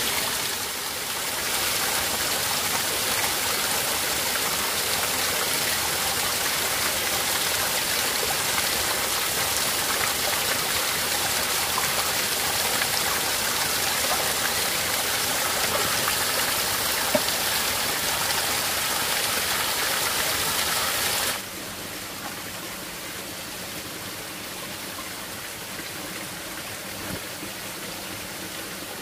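Small waterfall pouring onto rocks: a steady rushing splash of falling water. About 21 seconds in it drops suddenly to a quieter, steady flow of a shallow stream.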